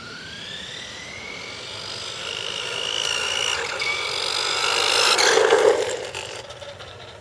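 Electric motor of a 1990s Air Beam RC buggy whining as it climbs uphill, rising in pitch as it speeds up over the first two seconds. It grows louder as the car closes in, peaks with a rush of tyre noise as it passes close by about five and a half seconds in, then fades.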